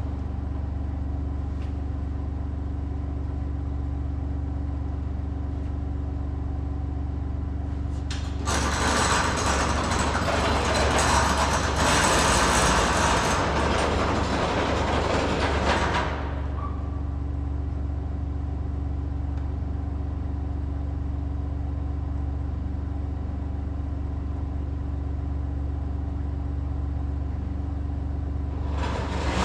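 Vehicle engine running steadily at low speed, with a louder, rougher noise laid over it for about eight seconds in the middle before it settles back to the steady hum.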